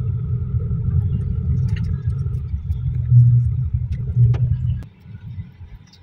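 Low, steady vehicle rumble, which cuts off a little before five seconds in.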